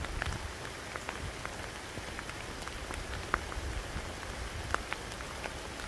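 Rain falling: a steady hiss with scattered sharp ticks of single drops striking at irregular intervals.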